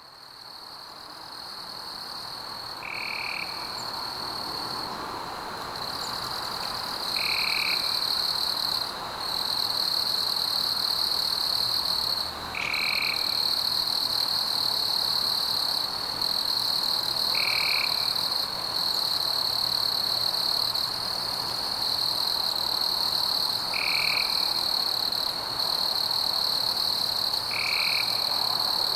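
Night forest ambience: a steady high-pitched insect trill over a frog chorus, with a short call repeating about every four to five seconds. It fades in over the first few seconds.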